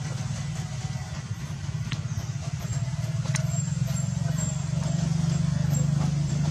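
Steady low engine-like rumble that grows louder in the second half, with a couple of short sharp clicks.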